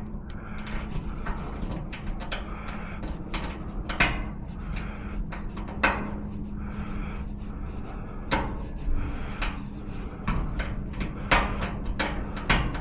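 Hand work on a small improvised handle: irregular light clicks, taps and rubbing of hard parts, over a faint steady hum.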